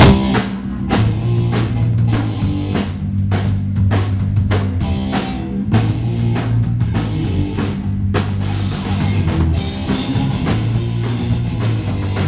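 Live rock band playing an instrumental passage: drum kit keeping a steady beat under electric guitar and bass guitar. Cymbals wash in near the end.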